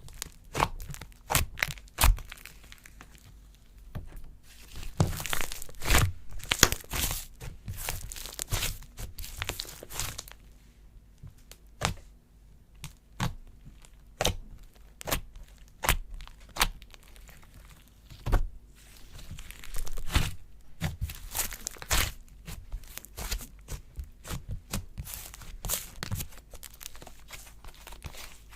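Slime being played with and pressed: a steady run of sharp, irregular clicks and crackling pops, with no talking.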